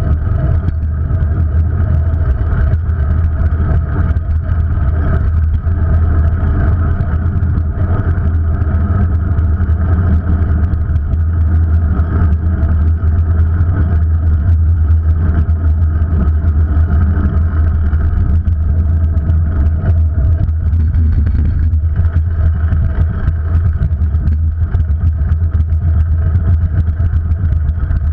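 Wind and road rumble on a bicycle-mounted GoPro while riding: a loud, steady, deep rumble with no break.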